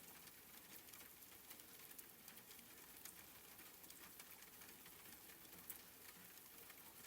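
Faint, steady rain pattering, with many small drop ticks.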